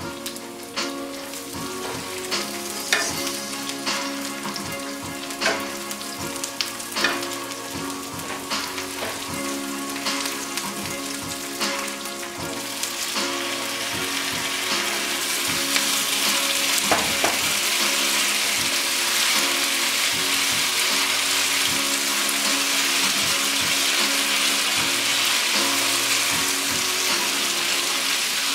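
Garlic and onion frying in olive oil in a nonstick pan, sizzling with scattered sharp pops. About halfway through, the sizzle turns louder and steady as soaked white beans go into the hot oil and are stirred.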